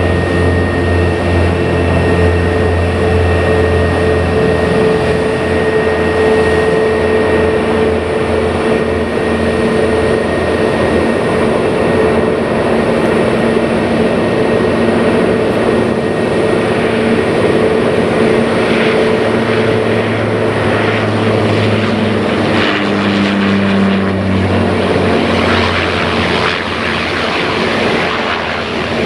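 Airbus A320neo airliner's jet engines running at taxi power, a steady whine over a low hum. About halfway through it grows rougher and hissier and the lower tones shift as the engines pass.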